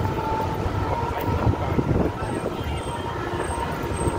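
City street ambience: a steady low rumble of road traffic passing close by.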